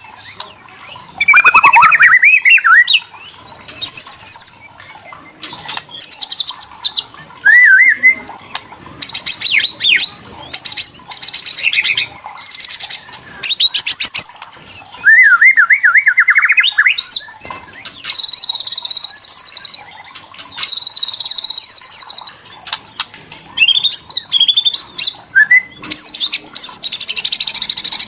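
White-rumped shama calling in bursts. Rapid dry rattling 'kretekan' clicks alternate with short up-and-down whistled phrases and high buzzy trills. This agitated rattle is used to provoke other shamas into singing.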